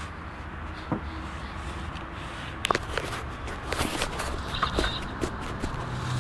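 A turning wheel squeaking, with scattered clicks and knocks over a low steady hum; a brief high squeak comes about four and a half seconds in.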